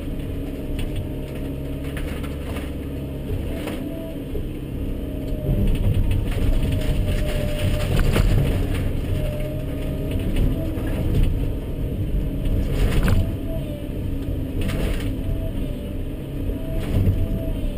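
Volvo 140BL excavator's diesel engine and hydraulics working under load, heard from inside the cab, with rotten barn timbers cracking and crashing down as the bucket tears into the barn. It gets louder about five seconds in, with repeated sharp cracks and knocks through the rest.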